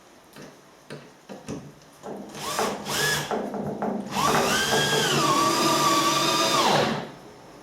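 Cordless drill-driver driving screws into plywood flooring: a few light knocks, a short burst of the motor about two seconds in, then a run of about three seconds whose pitch rises, holds steady and drops as it stops.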